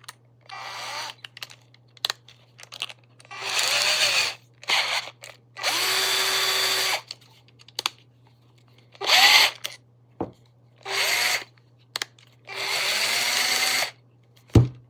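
DEKOPRO 12 V cordless drill/driver run in short bursts of about a second, about half a dozen times, its motor spinning up and winding down each time with pauses in between. A single thump near the end.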